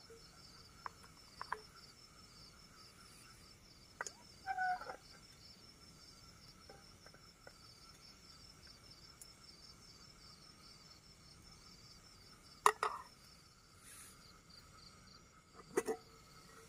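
Crickets chirping steadily and rhythmically, with a few clinks and clanks of a spoon and lid against an aluminium camping cook pot; the loudest clanks come about two-thirds of the way through and again near the end.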